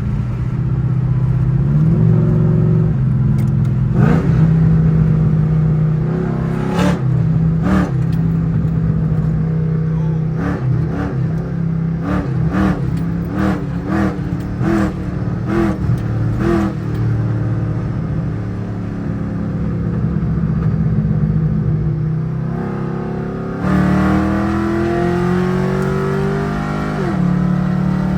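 Ford Crown Victoria V8 running with its exhaust leaks freshly repaired, no longer leaking, a steady deep note. A series of short sharp sounds runs over it in the first half, and near the end the pitch rises steadily for a few seconds as it is revved, then drops back.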